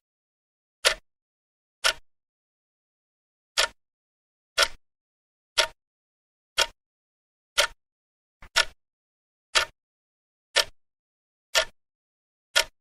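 Clock ticking sound effect: sharp, dry ticks once a second with silence between them, one beat skipped about three seconds in.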